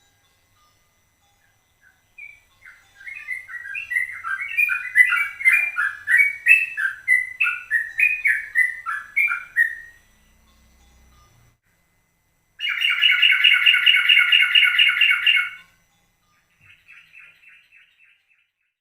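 Yellow-vented bulbul (trucukan) singing in fast 'ropel' bursts: a string of quick bubbling chirps, then a dense rapid trill about two-thirds through, and a softer short trill near the end.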